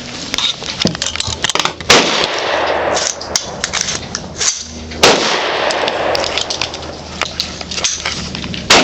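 Bushmaster AR-15 rifle firing three single shots, about three seconds apart. Many lighter sharp clicks and clinks come between the shots.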